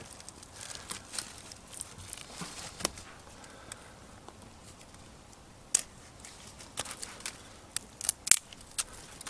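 Small dry twigs snapping and clicking as they are split and handled by hand at a tiny twig stove. The snaps are scattered, with a cluster of louder ones near the end.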